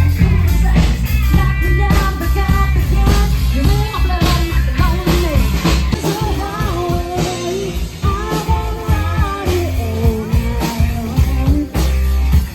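Upbeat rock-style music with a steady beat and a singing voice.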